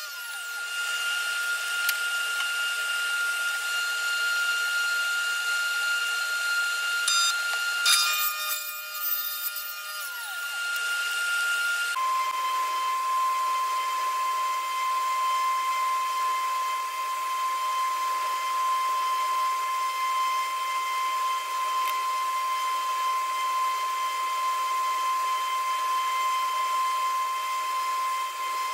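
Steady high-pitched whine of a running power tool or shop machine, with a few clicks about seven to ten seconds in. About twelve seconds in it changes abruptly to another steady, somewhat lower whine.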